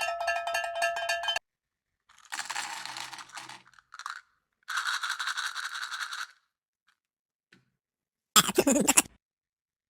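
A string of short edited sound effects with silent gaps between them: a ringing rattle for about a second and a half, then two stretches of fast clicking rattles, and a short loud clatter near the end.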